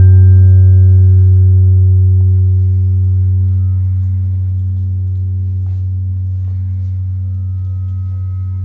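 Large round sand-covered vibrating plate ringing with a deep steady hum and a stack of higher overtones, slowly fading, with a few faint ticks.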